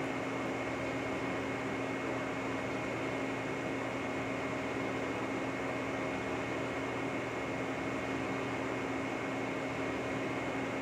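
Lucas model 41 horizontal boring mill running steadily: an even hum with a constant high whine over it, unchanging throughout.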